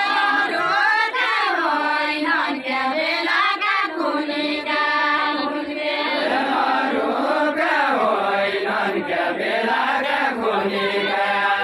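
Deuda, a far-western Nepali folk song, sung by the voices of the dancing line without instruments, in a chant-like melody with long gliding notes.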